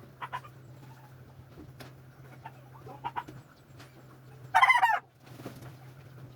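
Domestic chickens clucking in short calls, with one loud half-second rooster call about four and a half seconds in, over a steady low hum.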